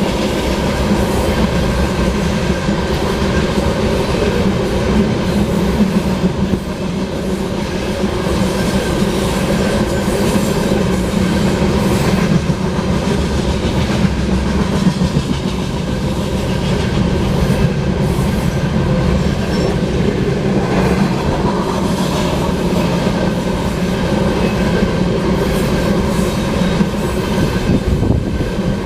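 A loaded oil unit train's tank cars rolling past at track speed: a steady, loud rumble of steel wheels on rail with a clickety-clack of wheels over rail joints.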